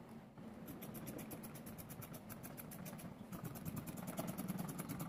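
Fabric shears cutting through cloth on a table, against a steady low hum and a fast, even ticking of about eight ticks a second.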